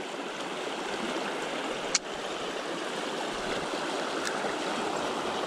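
Mountain creek water rushing steadily, with one sharp click about two seconds in.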